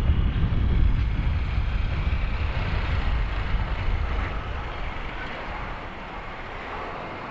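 Wind rushing over the microphone with road and engine noise from a Honda Click 150i scooter being ridden; the low rumble fades over the last few seconds.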